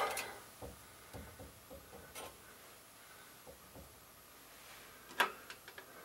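Faint scattered clicks and taps from hands handling a pipe and its fittings, with one sharper click about five seconds in.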